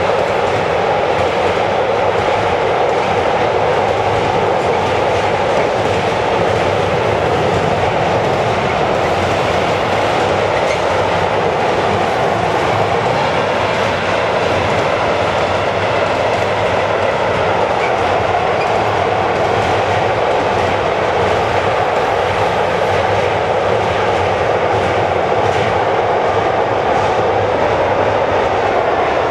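Long intermodal freight train of container wagons rolling past over a steel arch bridge: a steady rolling noise of the wagons' wheels on the rails.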